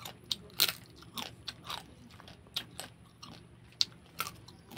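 A person biting and chewing crab, with sharp, irregular cracks and crunches of shell between the teeth; the loudest crack comes about half a second in, another just before four seconds.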